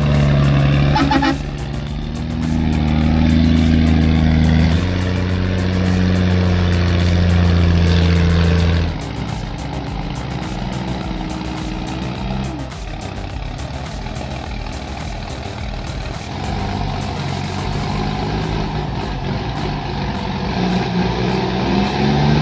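Heavy truck engine running hard under load, its pitch stepping down about a second and a half in and again about five seconds in. After about nine seconds it drops back to a lower, steadier run.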